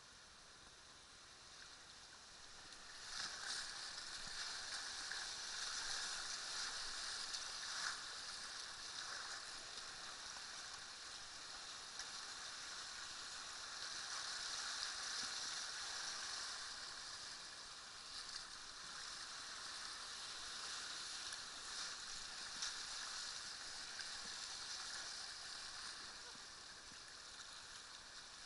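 Rushing, splashing whitewater around a kayak running a river rapid: a steady hiss that swells about three seconds in, with a few brief louder splashes from paddle strokes.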